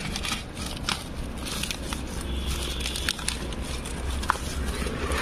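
Cardboard and plastic stretch wrap rustling and crackling as hands pull apart a torn parcel, with scattered small clicks and crinkles.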